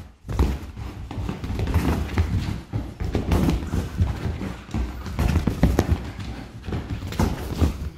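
A dog scrambling and leaping about on a fabric sofa: a rapid, irregular run of thumps and scuffs from its paws and body landing on the cushions.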